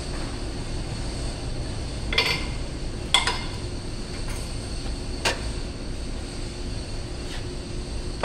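Metal hub parts of a forklift wheel clinking sharply three times, about two, three and five seconds in, as they are handled, over a steady machine hum.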